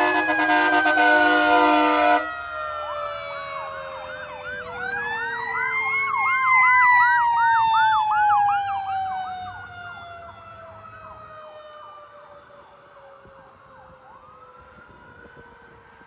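Fire truck train horn blasts a loud chord of several steady tones for about two seconds over a siren's falling wail. Then a fast yelping siren joins a wail that rises and slowly falls, and both fade as the trucks move away.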